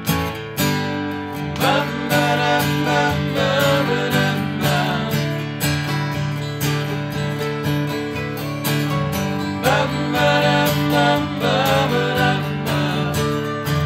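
Instrumental break of a country-rock song: strummed acoustic guitar chords carry a steady rhythm while a lead instrument plays a bending melody line over them, rising strongest near the start and again about ten seconds in.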